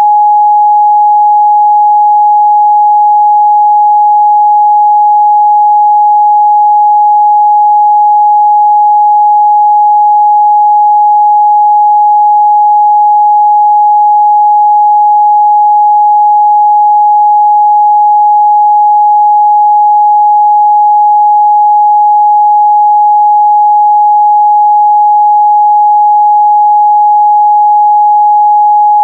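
A continuous pure sine-wave test tone at 836 Hz, one steady pitch at a constant loud level with no other sound.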